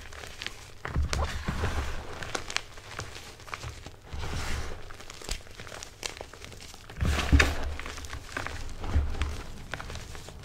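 Crumbled Asana gym chalk being squeezed and crushed by hand in a pan: repeated soft crunching and crumbling with dull thumps, the loudest about seven seconds in.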